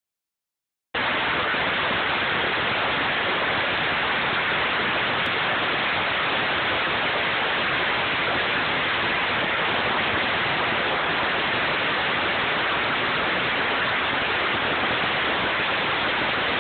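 Heavy hail falling on parked cars and pavement: a dense, steady hiss that starts about a second in.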